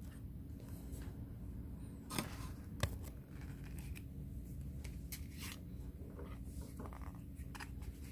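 Light clicks, taps and scraping from handling the opened laptop battery pack and its cells, a few sharper clicks around two to three seconds in, over a steady low hum.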